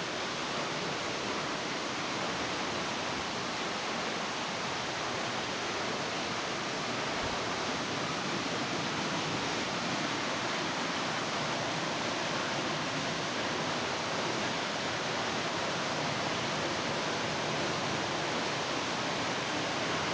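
Waterfall falling steadily into a rock pool: an even, unbroken hiss of water.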